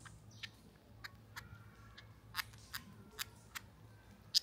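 A baby monkey's mouth clicking and smacking as it chews its food: sharp, irregular clicks about twice a second.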